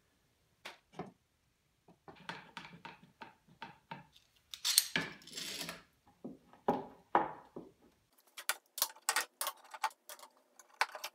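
Metal bar clamps and a plastic trigger clamp being handled and tightened on a glued stack of wooden strips: clattering metal and clicking knocks, a louder scraping rattle about five seconds in, and a quick run of sharp clicks near the end.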